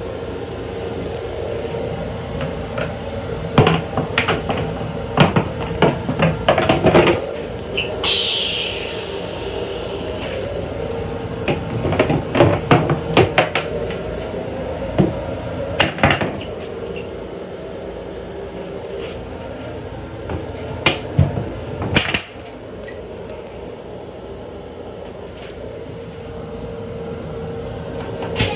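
Long Island Rail Road M7 electric railcar heard from inside its restroom: a steady hum with a constant tone, broken by irregular clusters of clanks and rattles. There is a short hiss about 8 seconds in, and the hum drops a little after about 22 seconds.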